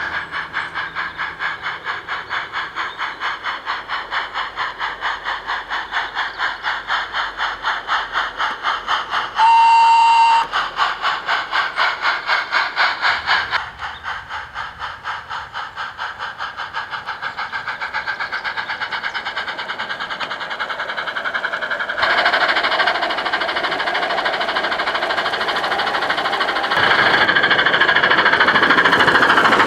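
Steam sound card in a radio-controlled Gauge 1 Hall locomotive playing rhythmic exhaust chuffs, set to match the wheel revolutions. A whistle blast lasts about a second, about ten seconds in. In the second half the chuffs quicken and blur into a louder continuous rush.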